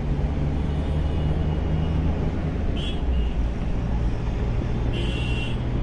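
Steady car engine hum and tyre road noise heard from inside the cabin while cruising on a highway, with two short faint high-pitched tones about three and five seconds in.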